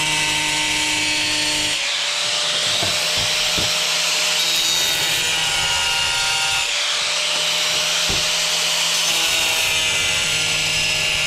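Angle grinder grinding a hole into a tile under light pressure, running steadily with a gritty hiss over an even motor whine.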